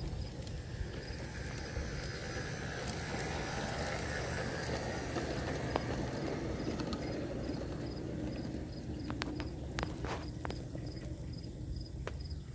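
G scale model train rolling past: a rolling rumble of its wheels that swells and fades, with sharp clicks as the wheels cross rail joints near the end.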